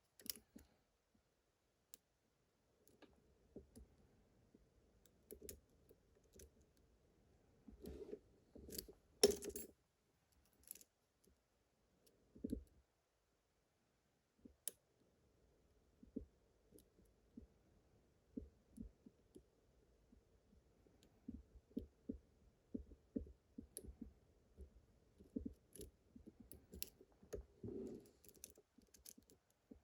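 Faint clicking and ticking of a lock pick working the pins of a pin-tumbler lock cylinder under tension, with a few sharper clicks around eight to ten seconds in and a run of small ticks through the second half.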